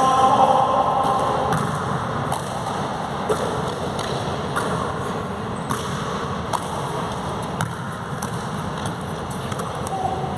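Basketball bouncing and being caught on an indoor court floor: scattered single thuds, roughly one a second, over a steady hiss.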